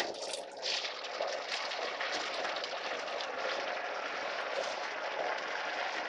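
Tomato-and-onion masala sizzling in a steel pot on the stove, a steady hiss with fine crackles, after a brief knock at the very start.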